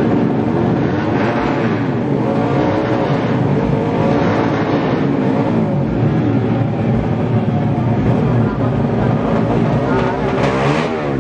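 Several tuned drag-racing motorcycle engines revving up and down together at the start line, their pitches rising and falling over one another, with one sharp high rev near the end.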